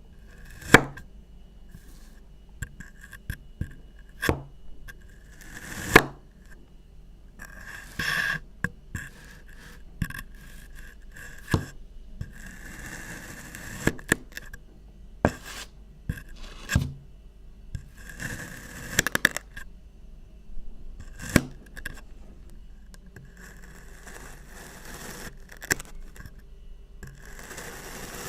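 Kinetic sand being cut and scraped: stretches of gritty scraping lasting a second or several, broken by irregular sharp clicks.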